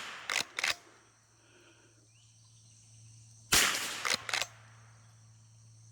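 A single .22 rimfire gunshot about three and a half seconds in, sharp and quickly fading, followed within a second by two light metallic clicks. The tail of the previous shot, with the same pair of clicks, is heard at the start, over a faint steady low hum.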